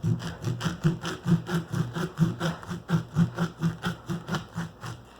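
A blade sawing back and forth through a baseball's stitched seams, in quick even strokes about four a second, stopping shortly before the end.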